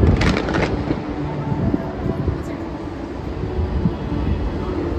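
Distant crackle of stage pyrotechnic fountains in about the first half-second, over a steady low rumble.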